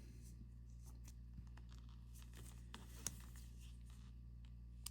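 Near silence with a few faint, brief clicks and taps from handling small watch parts and tools on a desk; the clearest comes about three seconds in and another near the end.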